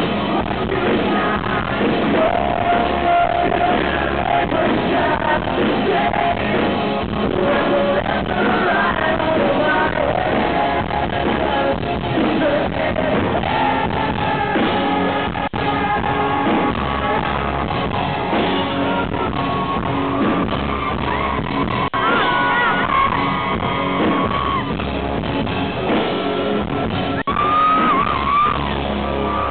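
Live rock band playing, with a male lead singer singing and yelling over electric guitar, in a large hall.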